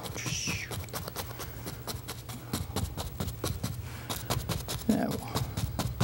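Paintbrush bristles dabbing and tapping on a stretched canvas, many quick irregular taps as foliage is stippled in, over a low steady hum.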